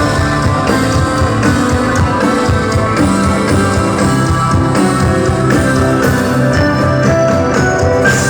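Rock music with guitar and drums, playing at a steady, loud level.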